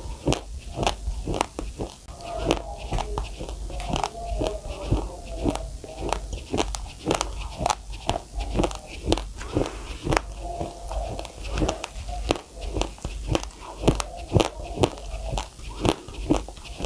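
Close-miked chewing of a mouthful of uncooked rice: a steady run of sharp crunches, a few each second, as the dry grains crack between the teeth.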